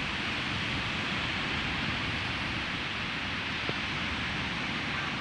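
Low ocean waves breaking and washing up a sandy shore: a steady hiss of surf.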